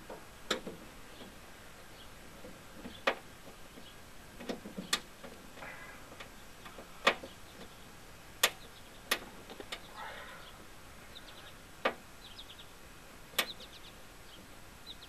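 Sharp, irregular clicks and taps a second or two apart: hands working the small plastic wiring-harness clips free on the bare steel inner skin of a Jeep Wrangler JK half door.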